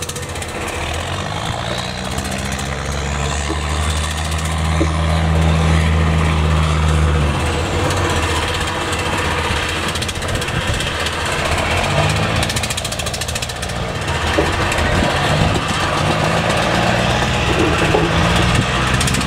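Fishing boat's inboard diesel engine running with a low, steady drone. It is strongest from about two to seven seconds in, eases off, and comes back over the last several seconds.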